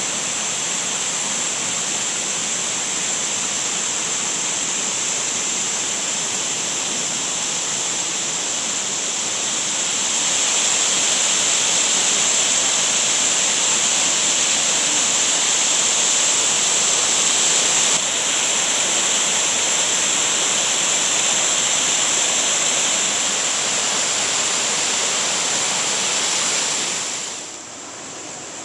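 Shiraito Falls, a wide, low curtain of many thin streams of spring water, rushing steadily. It grows louder about ten seconds in and falls away sharply near the end.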